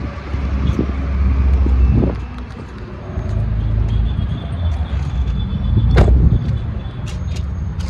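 Car running, heard from inside the cabin: an uneven low engine and road rumble, with a sharp knock about six seconds in.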